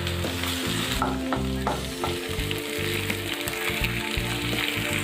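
Sliced onions and ginger-garlic paste sizzling in hot oil in a frying pan, with occasional clicks of a spatula stirring against the pan, over background music.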